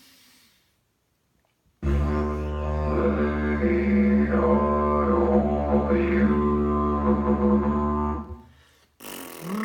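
Didgeridoo drone starting about two seconds in and held for about six seconds, the player toning the vowels A, E, I, O, U through it so the colour of the tone shifts step by step while the low drone stays steady. Near the end a buzz of the player's lips alone begins, the same vowel exercise without the instrument.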